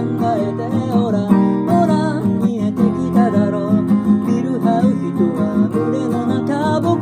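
Acoustic guitar strummed steadily, with a voice singing a wavering melody over it.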